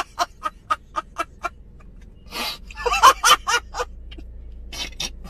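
A man laughing hard in quick rhythmic bursts, about four a second, which break off after a second and a half and return in a couple of shorter fits.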